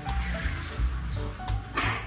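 Background music with a pulsing bass beat and short melodic notes, and a brief hissing burst near the end.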